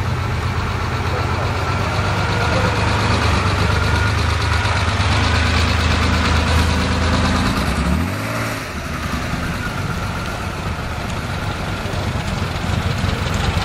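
Air-cooled flat-six of a classic Porsche 911 T idling with a steady low exhaust note. About eight seconds in the pitch rises briefly as the engine is blipped. After that it gives way to a quieter, rougher mix of engine and road noise.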